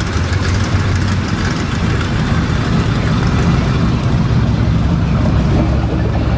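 Steady low engine rumble of show cars driving slowly past: a lowered GMC pickup, then an Avanti coupe.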